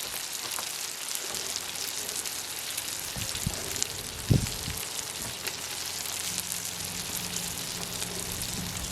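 Chopped hot dogs, cheese and bread sizzling on a Blackstone flat-top griddle: a steady frying hiss with fine crackling. A single knock about four seconds in.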